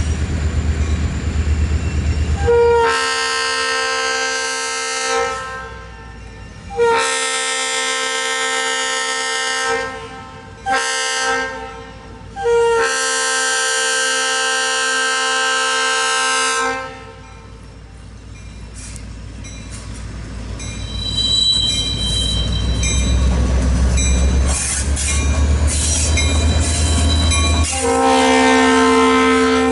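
An EMD diesel locomotive's multi-chime air horn blows the grade-crossing signal: two long blasts, a short one and a long one. Then the diesel engine rumbles louder as the locomotive passes close, with a brief high squeal from the wheels. Another horn blast starts near the end.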